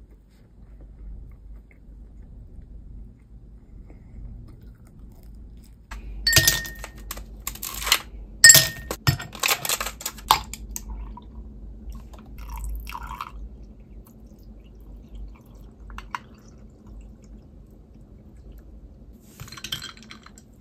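Ice cubes clattering and clinking against a glass in a dense run of sharp clicks lasting about four seconds, followed by a few scattered clinks. Near the end, a metal straw clinks against ice in an iced milk coffee.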